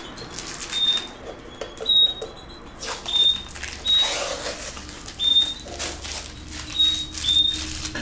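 Clear adhesive tape being peeled off an MDF box, crackling and tearing in uneven strokes. Short high peeps come about once a second behind it.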